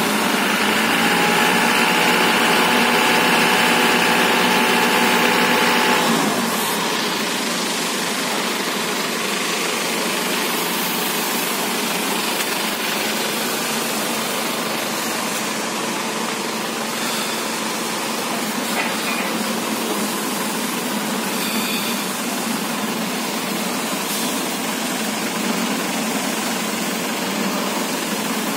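Truck engine running steadily to power a truck-mounted hydraulic crane lifting a marine diesel engine. For the first six seconds a steady whine rides over it, then stops abruptly and the engine settles to a quieter even running.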